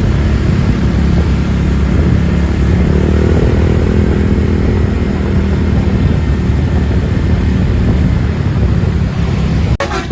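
Bus engine running loud and steady, with a brief rise and fall in pitch near the middle; the sound breaks off abruptly near the end.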